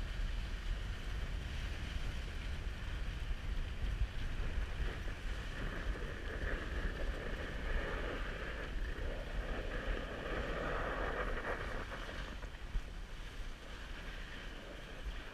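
Dog sled runners hissing steadily over snow while the sled is pulled along, with wind rumbling on the microphone.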